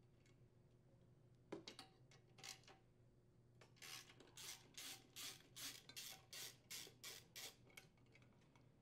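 Faint clicking of a hand ratchet with a 10 mm socket and extension unthreading a rocker cover screw. A few scattered clicks come first, then from about four seconds in a steady run of short ratcheting strokes at about three a second, stopping near the end.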